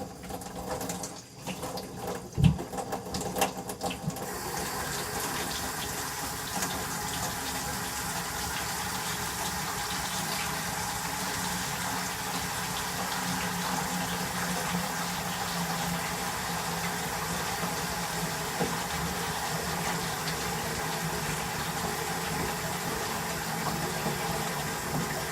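Kitchen faucet running steadily into a stoppered sink basin, filling it with water. A few knocks and clatters come before it, the loudest about two and a half seconds in.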